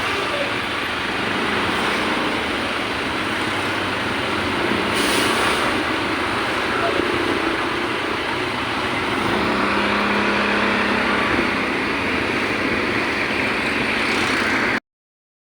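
Steady roadside traffic noise, engines and tyres running together, with voices mixed in.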